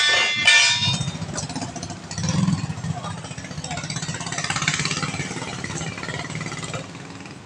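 Two ringing metal clinks in the first second as a tool strikes the steel wheel rim while working the tyre bead loose, over a steady low engine hum at idle.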